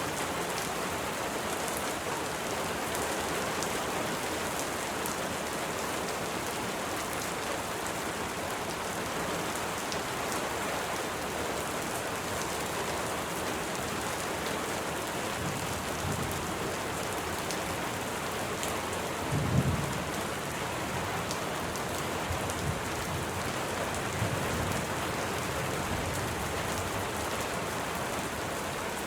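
Steady rain falling, with low rumbles of thunder a few times; the loudest rumble comes about two-thirds of the way through.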